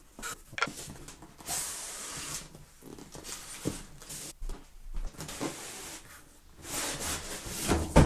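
Cardboard box being opened and handled: flaps scraping and rubbing, with a few knocks as the boxes shift and a louder knock near the end.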